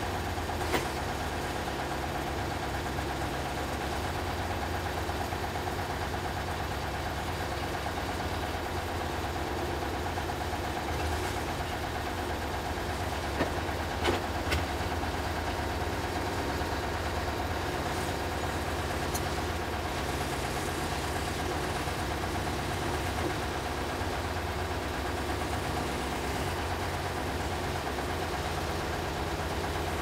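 Front-loader tractor's engine running steadily while its forks turn a large birch log on the sawmill bed, with a few sharp knocks about a second in and again midway.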